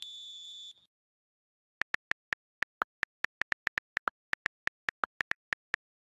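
A high electronic beep for about the first second, then keyboard typing clicks, about two dozen quick taps, one for each letter as a search is typed in.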